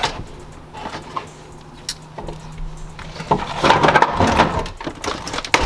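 Needle-nose pliers twisting and prying a stuck part in a 1983 Cutlass dashboard. It starts with a second or two of quieter fiddling, then from about halfway in comes a busy stretch of scraping, clicking and cracking as the part gives way.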